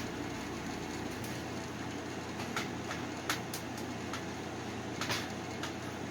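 Light clicks and taps of a screwdriver and hands working screws out of the back of a home theater unit's case, about half a dozen scattered through, over a steady background hum.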